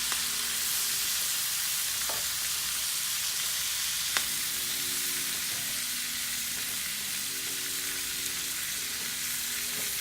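Raw cabbage frying hard in hot bacon fat with onions: a loud, steady sizzle, still strong because the freshly added cabbage has not yet given up its water. One sharp click about four seconds in.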